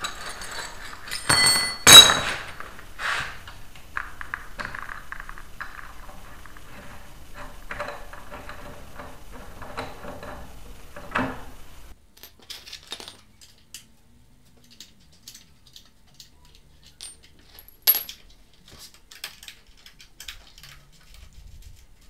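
Metal hand tools clanking and clinking against a concrete floor: two loud ringing clanks near the start, then scattered light ticks and taps, with one sharp click later on.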